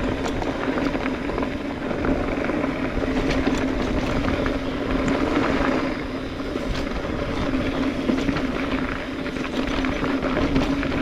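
Mountain bike riding over a dirt trail: tyre and trail noise with many small clicks and rattles from the bike, over a steady humming drone.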